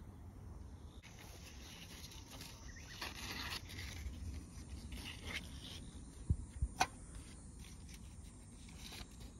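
Faint rustling and scraping of fig leaves close to the microphone, with low handling rumble and a few sharp knocks a little past halfway.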